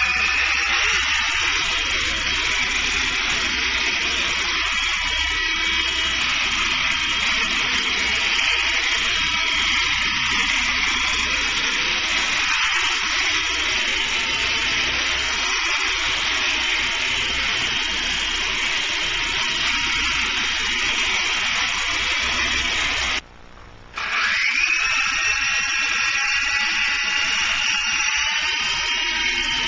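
Electric motors and rotors of a small RC helicopter. They rise in pitch in the first second, then run at a steady high whine with rotor buzz. About 23 seconds in the sound cuts off abruptly, and a second later a fresh spin-up rises again to the same whine.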